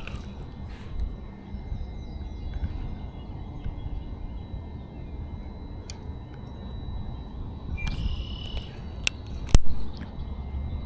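Low rumbling outdoor noise with a few sharp clicks, and a short chirp about eight seconds in.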